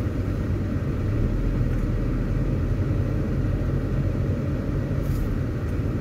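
Steady low rumble of a car on the move, heard from inside the car: tyre and engine noise while driving.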